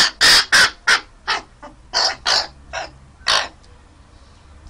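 Raven calling repeatedly: about ten short, harsh calls in quick succession over the first three and a half seconds, then it stops.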